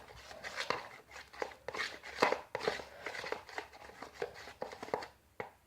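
A ruler stirring a thick glue-based slime mixture in a square container, with irregular wet scrapes and taps against the sides several times a second that stop about five seconds in.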